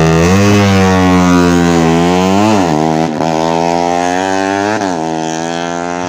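Fuel-injected Suzuki Satria FU150's 150 cc single-cylinder four-stroke engine being revved in short blips, the pitch rising and falling about four times.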